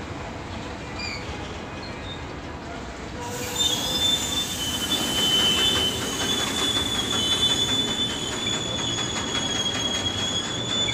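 Freight train of covered goods wagons on the rails: a low rumble, then about three and a half seconds in a steady, high-pitched metal-on-metal squeal sets in and holds, louder than the rumble.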